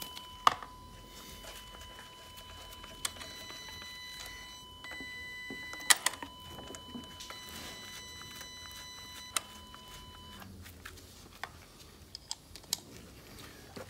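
Scattered clicks and light knocks of a compression tester's hose and quick-coupler fitting being handled and moved between spark-plug holes on a VW 2.0 FSI engine, with a faint steady high tone until about ten seconds in.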